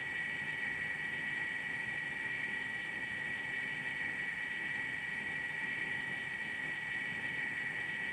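Sound board in an Athearn N-scale mechanical reefer car playing its recorded reefer diesel generator and refrigeration unit running, through the car's tiny speaker: a steady drone with a high whine over it.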